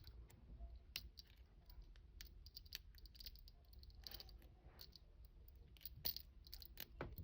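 Faint, irregular clicks and scrapes of a hair grip working inside a padlock's keyway, picking at the pins.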